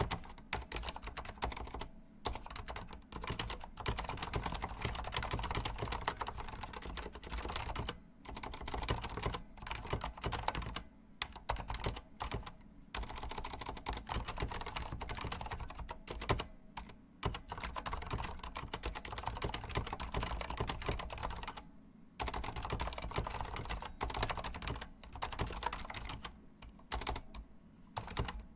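Typing on a Corsair Strafe mechanical keyboard with Cherry MX Silent switches: fast runs of key clacks broken by short pauses every few seconds.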